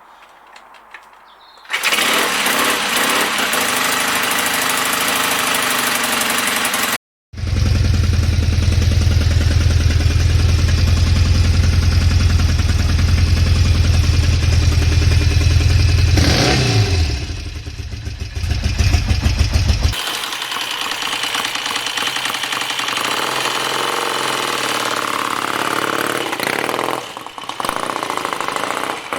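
Motorcycle engine running, heard in several short clips cut one after another, with a brief rise and fall in revs about halfway through.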